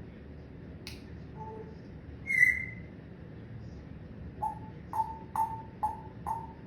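Pet parrot vocalising. A loud, short whistle-like call comes just past a third of the way in. It is followed in the second half by a run of five short calls on one pitch, about two a second.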